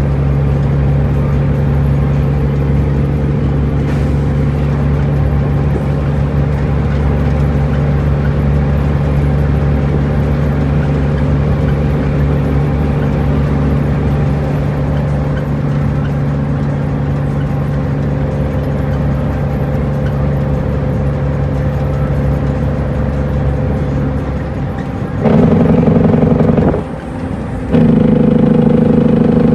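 Cummins N14 inline-six diesel of an International truck heard from inside the cab, running steadily while cruising. About 25 seconds in it gets much louder as it pulls, drops away briefly, then pulls again, the pattern of a gear change in the 13-speed.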